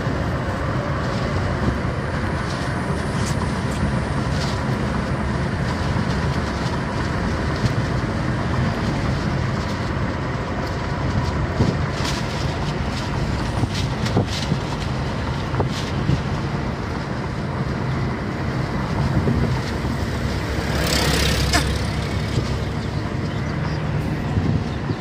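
Steady road and engine noise of a moving car, heard from inside the cabin, with a few faint clicks and, near the end, a hiss lasting about a second.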